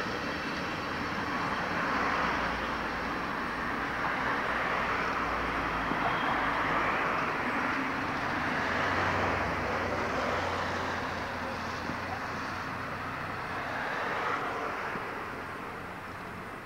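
Electric locomotive moving through a railway yard: a steady rolling rumble and hiss with a low hum beneath, dropping off in the last few seconds.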